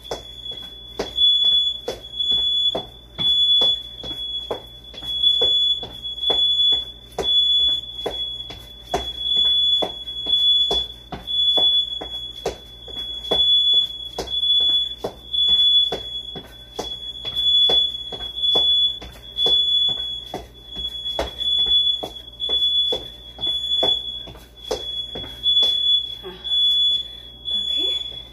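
House smoke alarm going off: a shrill, high-pitched electronic beep repeating without pause, swelling about once a second. Regular thumps sound beneath it.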